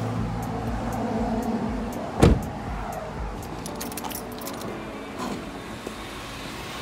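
Keys jangling and scattered clicks as a person climbs out of a car, with the car door shutting in one loud thump about two seconds in. Footsteps on asphalt follow.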